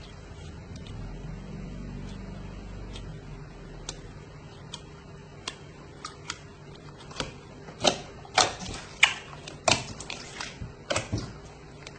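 Clear watery slime being handled by hand, giving sharp wet clicks and pops. The clicks are sparse at first, then louder and more frequent from about eight seconds in.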